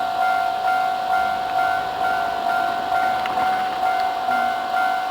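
Japanese railway level crossing warning bell ringing: a steady electronic tone pulsing in even strokes about twice a second.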